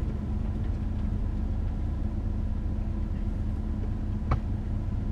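Engine and road rumble inside a vehicle's cabin as it drives slowly along a dirt track: a steady low drone with a faint steady hum, and a single sharp click a little past four seconds in.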